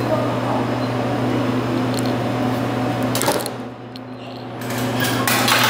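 Snack vending machine's motor running with a steady hum, turning a spiral coil to push out the selected item. It dips briefly partway through, then noise grows louder near the end.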